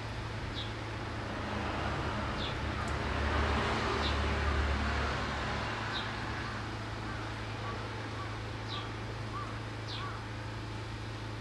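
A small wild bird giving short, high, downward chirps about every two seconds, about six in all. A vehicle passes by, its rushing noise and low rumble swelling to a peak near the middle and then fading.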